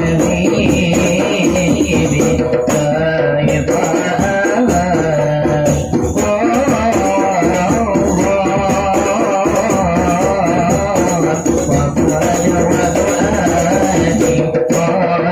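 Sholawat, an Islamic devotional song: a melismatic solo voice over steady hand-percussion accompaniment.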